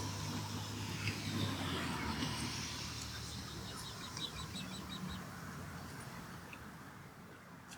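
A bird giving a quick series of about six short, high chirps about halfway through. Before that, a low steady hum fades out in the first couple of seconds.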